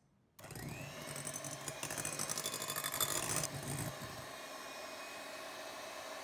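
Electric hand mixer switched on about half a second in, its motor spinning up with a rising whine. It rattles for the first three seconds or so, then runs steadily as its wire beaters whip egg whites toward soft peaks.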